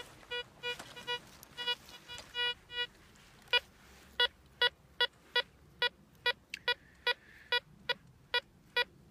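Pirate Treasure Hunter 2 Pro metal detector set to single tone, beeping as its coil is swept over a coin buried among rusty nails. For the first few seconds the beeps come unevenly and sound choppy. From about three and a half seconds in, a steady run of very short, clean beeps follows, about two or three a second.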